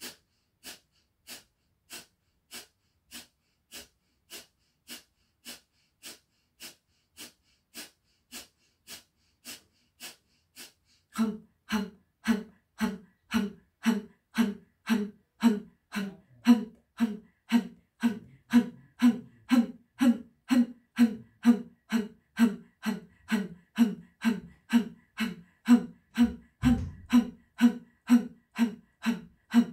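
Kapalabhati breathing: a woman makes short, forceful exhalations in a quick, even rhythm of about two a second. From about a third of the way in, the exhalations grow louder and each carries a sound of voice.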